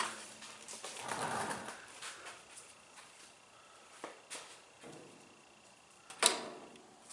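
Scattered clicks and knocks of hand tools and washer parts being handled during the washer teardown, with one sharp knock about six seconds in, the loudest.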